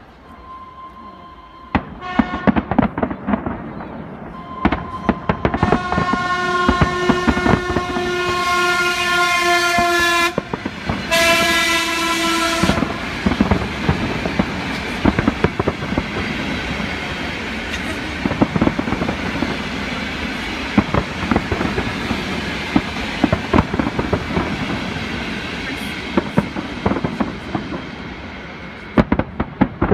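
Fireworks display bursting in a dense, continuous run of bangs and crackles. A horn sounds several times in the first half, held for about four seconds once and then briefly again.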